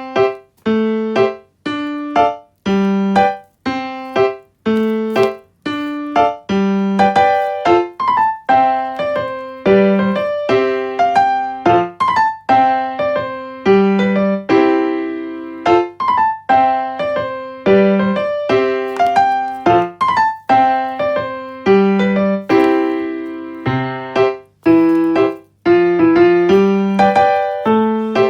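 Background music: a piano or electric piano playing a light, repeating melody with a steady beat.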